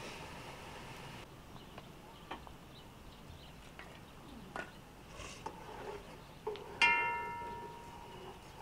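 A steady hiss from the wood fire under the cooking pot stops about a second in. Quiet ambience with a few small clicks and knocks follows. Near the end one sharp clink rings on for about a second.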